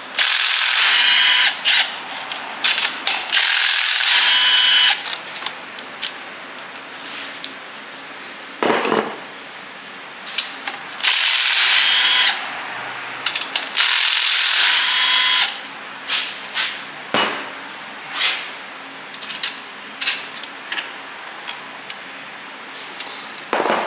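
Cordless impact wrench hammering in four short runs of about a second each, loosening the bolts of a Dana 30 front differential's bearing caps. Between the runs, scattered clicks and clinks of metal parts being handled.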